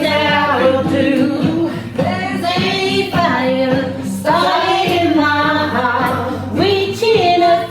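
A woman singing karaoke over a backing track, her sung notes held and bending in pitch over a steady accompaniment.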